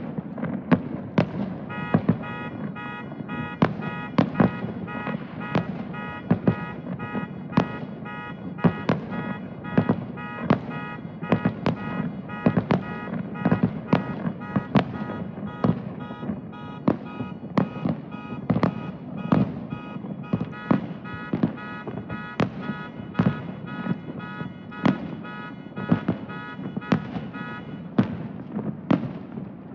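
Fireworks bursting in a rapid series of sharp bangs over a continuous rumble. From about two seconds in until near the end, a rapidly pulsing electronic tone sounds alongside them.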